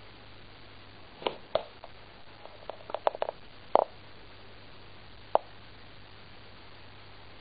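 A handful of light clicks and taps from hands handling a nail varnish bottle and brush while painting toenails, bunched around the middle and loudest a little before the halfway point, over a faint steady hiss and low hum.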